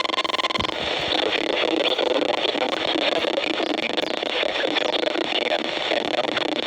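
A steady single-pitch alert tone cuts off suddenly under a second in. Steady radio static hiss with faint crackles follows as the alert broadcast goes dead air between messages.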